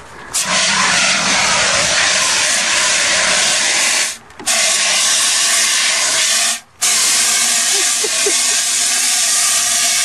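Handheld fire extinguisher discharging onto a burning car's front end: a loud, steady hiss that stops briefly twice, about four seconds in and again a little before seven seconds, as the trigger is let off and squeezed again.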